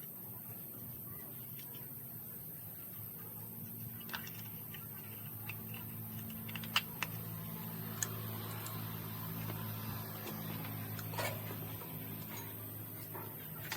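A low, steady mechanical hum that grows a little louder midway, with scattered light clicks and taps on top.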